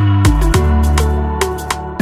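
Background music with deep bass notes, some sliding down in pitch, over a beat of sharp percussion hits.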